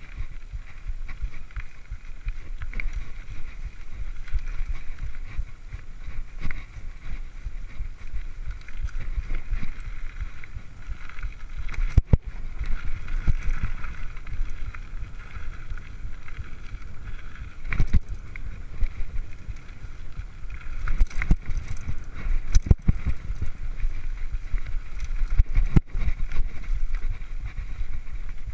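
Mountain bike rolling fast over a dirt trail: tyre noise and wind rushing on the microphone, with several sharp knocks and rattles of the bike over bumps.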